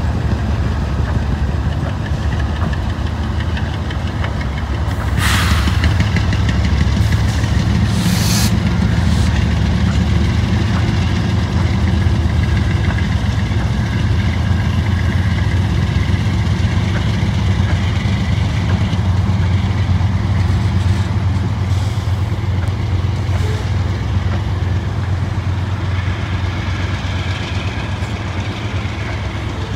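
Several diesel-electric freight locomotives running under load as they pull a train past, a loud, steady, deep engine rumble. Two short, sharp noises stand out about five and eight seconds in, and the rumble eases a little near the end as the engines move off.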